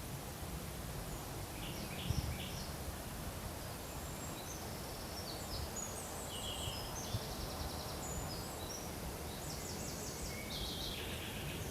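Songbirds singing in a forest: short trilled and buzzy phrases in three bursts, about two seconds in, from about four to eight seconds, and near the end, over a steady low rumble with a soft low thump about two seconds in.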